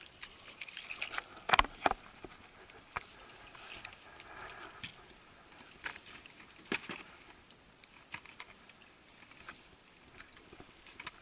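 Irregular light clicks and knocks, with a couple of louder knocks about one and a half to two seconds in. This is fishing tackle and a just-landed crappie being handled.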